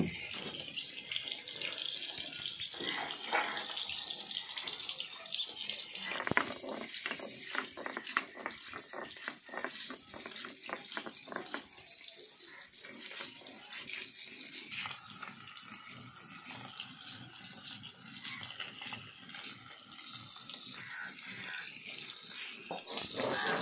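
Stone roller scraping and knocking on a stone slab as whole spices are ground, over a steady hiss, with a run of sharp strokes about a third of the way in. Near the end, fish frying in hot mustard oil in a steel kadhai sizzles loudly.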